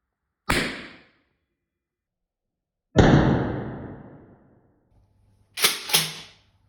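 Gunshots recorded indoors, each a sudden crack followed by a room echo. One comes about half a second in and dies away quickly. A louder one about three seconds in has a long tail. Two more shots come in quick succession near the end.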